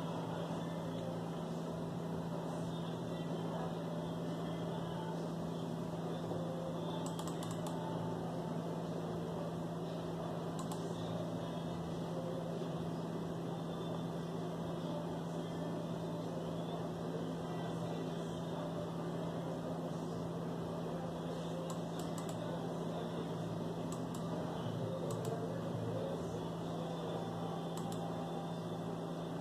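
Steady room noise with a constant low electrical hum and a few faint clicks.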